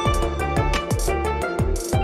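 Background music with a steady beat: kick drum about twice a second under sustained melodic notes and cymbal hits.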